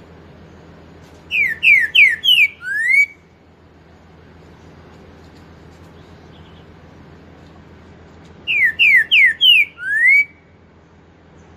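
Caged trinca-ferro (green-winged saltator) singing twice. Each loud whistled phrase is four quick falling notes followed by a longer rising note, the four-note song with a 'boi' ending.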